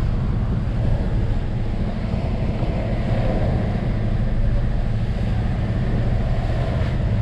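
Passenger ferry's engine running steadily with a low drone, mixed with wind on the microphone and the rush of water along the hull.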